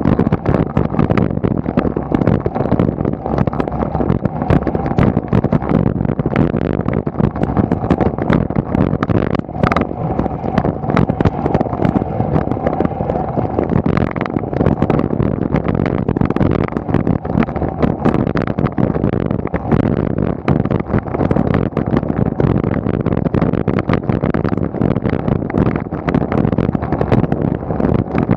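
Continuous rumble and dense rattling from a road bicycle climbing on asphalt at about 20 km/h, heard through a camera carried on the bike.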